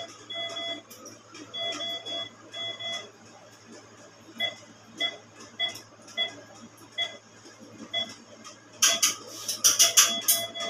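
Veterinary patient monitor beeping with each heartbeat of an anaesthetised dog, about one and a half short beeps a second, over a steady low hum. Near the end comes a brief burst of sharp metallic rattling as instruments are handled in the steel tray.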